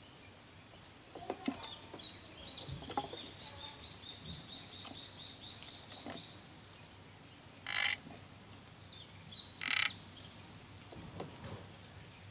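Sado frogs calling. A run of quick, evenly spaced high clicks, about four a second, starts about two seconds in and lasts some four seconds. Two short, louder bursts follow, near eight and ten seconds in.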